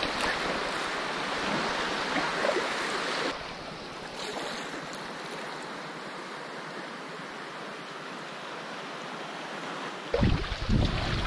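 River water rushing and washing close to the microphone at the surface of a packraft. It cuts abruptly to a quieter, thinner wash about three seconds in. Near the end it cuts back to a louder, rumbling wash with wind buffeting the microphone.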